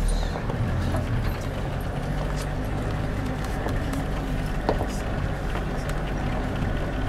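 Safari vehicle's engine running steadily, a low hum, with a few faint clicks over it.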